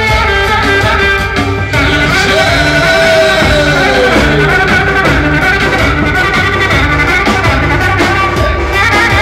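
Live Turkish Roman (Romani) dance music: a trumpet plays the melody over a steady drum beat. Two to four seconds in, one long held note slides downward.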